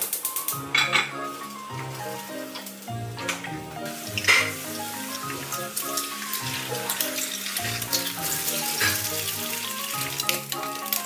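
Eggs sizzling as they fry in a four-cup nonstick egg pan on a gas hob, the sizzle building in the second half, with a few sharp knocks of the pan. Light background music plays over it.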